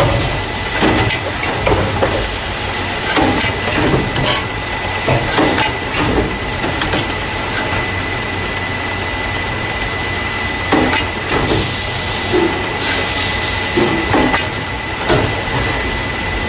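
Carton caser running, the packing machine that moves paper milk or juice cartons into plastic crates. A steady low hum and a thin high whine lie under irregular mechanical clacks and knocks, with a stretch of hiss about twelve seconds in.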